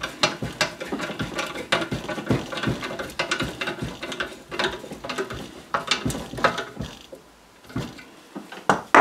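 Hand tool clicking in short, irregular strokes as the screw on a scooter exhaust's silencer clamp is turned and tightened. The clicks thin out about seven seconds in, with one more near the end.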